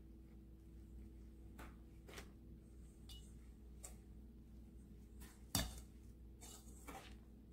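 Faint scrapes and clicks of a wire whisk against a stainless steel mixing bowl as flour is stirred into cookie dough, with one sharper knock about five and a half seconds in.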